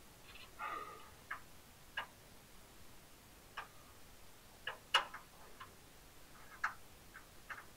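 Scattered light metallic clicks and taps of a small steel bracket and bolts being test-fitted against a truck's brake pedal lever, about eight in all, the sharpest one about five seconds in.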